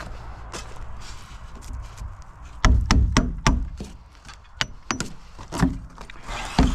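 Wood being struck hard, as when rotten wall framing is knocked out. After faint light clicking, about six loud blows land in quick succession a little over a third of the way in, followed by a few more spaced-out knocks.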